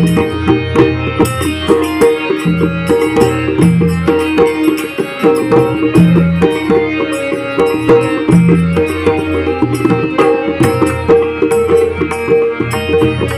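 Konkan bhajan music: harmonium playing the melody in held notes over fast, dense pakhavaj and tabla strokes.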